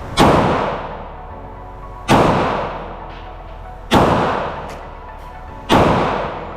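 Glock 48 9mm pistol fired four times in slow, deliberate succession, about two seconds apart, each shot echoing for about a second.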